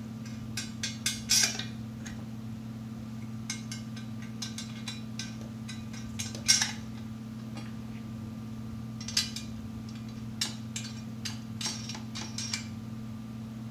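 Small metal clicks and clinks of wing nuts being threaded and tightened by hand onto the bolts that fasten a metal kiosk column to its base plate. They come scattered and irregular, the loudest about a second and a half in and about six and a half seconds in, over a steady low hum.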